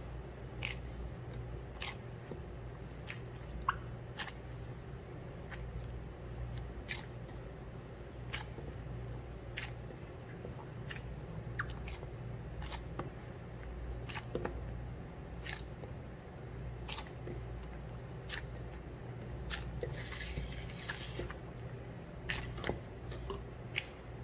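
Gloved hands squeezing and rubbing crumbly glutinous rice flour dough against a stainless steel bowl: soft crunching and squishing with scattered light clicks, over a steady low hum. The dough is still dry and short of water, so it breaks into crumbs rather than coming together.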